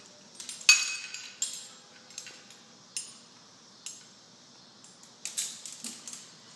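Steel and aluminium rope-rescue hardware (carabiners, pulley and rigging plates) clinking and clanking as it is handled while a prusik is attached to the rig. A string of sharp metallic clinks at uneven intervals, the loudest about a second in with a short ring.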